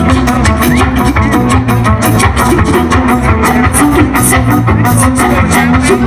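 Live band playing loud amplified music: a bowed violin over bass guitar and a drum kit keeping a steady beat.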